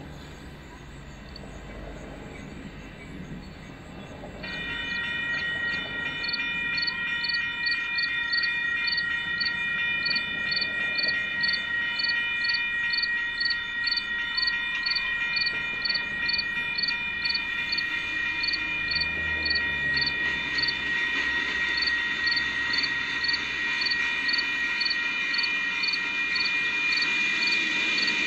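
A railroad grade-crossing bell starts about four seconds in and keeps ringing at a steady, rapid beat of two to three strokes a second: the crossing signal activated for the approaching train. A faint rumble from the approaching Union Pacific local, led by a GP15-1 locomotive, grows beneath it.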